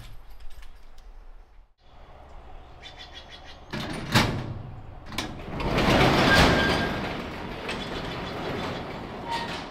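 Sectional garage door being opened: a sharp clack about four seconds in, then a loud rattling rumble lasting a couple of seconds as the panels roll up the tracks.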